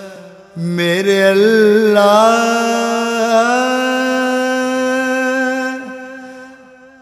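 A single voice singing a wordless melismatic phrase, the opening of a devotional song: it enters about half a second in with quick turns in pitch, then holds one long note that fades away near the end.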